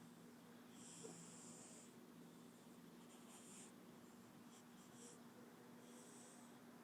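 A sleeping cat snoring: four faint, hissing breaths, one every second and a half to two seconds.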